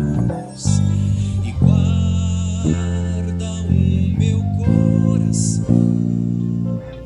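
Instrumental passage of a worship song: electric bass guitar playing along with guitar and band, the chords held and changing every second or two.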